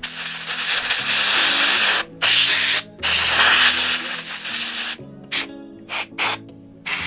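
Aerosol spray can sprayed through a thin straw nozzle into a shotgun stock's inletting to clean it. It goes in two long bursts with a shorter one between, then several quick short puffs near the end.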